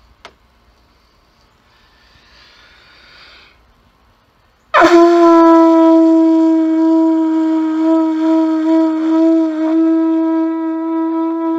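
Homemade conch shell horn blown in one long, loud, steady note. It starts suddenly about five seconds in and is held for about seven seconds.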